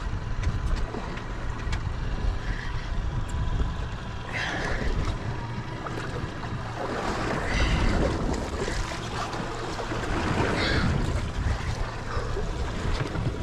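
Wind rumbling on the microphone over water sloshing against a small boat's hull, with a few louder rushes of water.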